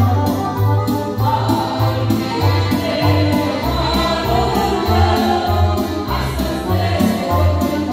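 Live worship music: women singing a hymn into microphones over an electronic keyboard with a steady bass beat, with accordion and a woodwind in the band.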